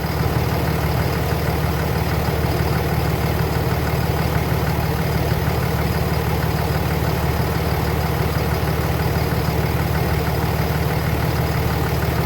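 Car engine idling steadily with the air-conditioning compressor engaged and pumping while refrigerant is charged in through the low side.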